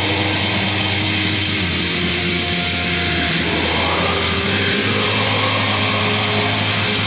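Post-black metal music: a dense, steady wall of distorted electric guitars with no break.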